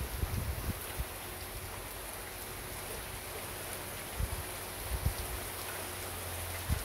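Heavy rain falling steadily, with a few short low thumps.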